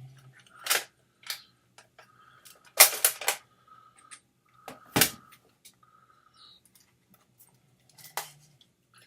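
Scattered plastic clicks and knocks from handling a Polaroid OneStep instant camera and its film pack. The loudest come about three seconds in and at five seconds, with a faint high whine between them.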